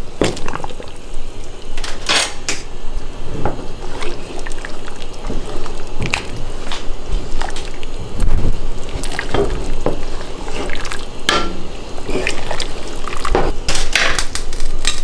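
A ham bone being lowered into a big pot of red peas and beef in their liquid: splashing and dripping, with scattered knocks and clinks against the pot.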